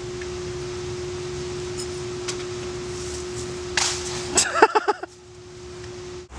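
A steady hum on one pitch, with a short rushing noise about four seconds in and a brief pitched sound that bends up and down just after. The hum cuts off suddenly near the end.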